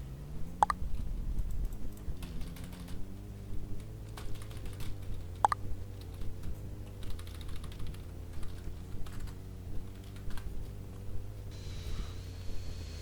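An engine running unevenly, its hum rising in pitch in the first second and then holding, with irregular clicking and ticking throughout. The owner calls this a 'cough' and asks how to cure it.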